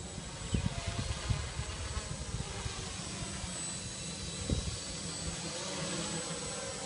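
Steady whir of a quadcopter drone's motors, with wind buffeting the microphone in uneven low thumps, several in the first second or so and one more about four and a half seconds in.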